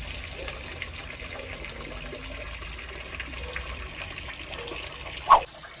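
Steady running and trickling water from a garden pond. A single short, sharp chirp-like sound about five seconds in is the loudest moment.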